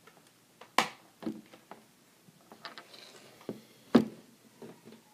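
Plastic snap-clips of a Toshiba Satellite C55-A5311 laptop's screen bezel being pressed back into place: several sharp clicks, the loudest a little under a second in and at about four seconds, with lighter ticks between.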